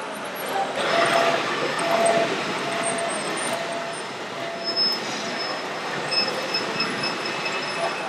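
Radio-controlled model construction machines at work: a steady mechanical rushing noise, with thin whining tones coming and going over it. A mid-pitched whine stutters on and off in the first half, and a faint high whine joins in the second half.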